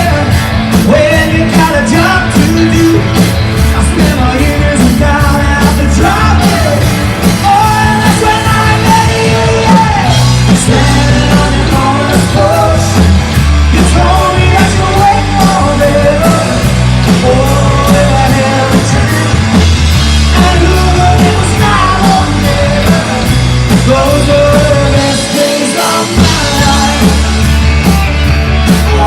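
Live rock band playing at full volume, a singer's voice over drums, bass and guitar. The low end drops out for a moment near the end before the full band comes back in.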